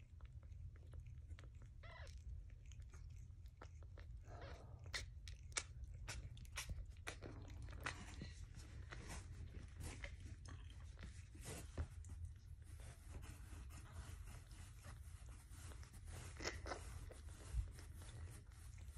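Faint wet mouth clicks and chewing sounds from a tortoiseshell mother cat and her newborn kittens, coming as a scatter of small irregular clicks.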